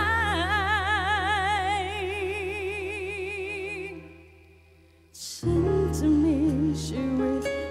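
A female singer holds a long note with wide, even vibrato over band backing; it fades out about four seconds in. After a brief near-silent gap and a short swish, the band music starts again with a new wavering melodic line.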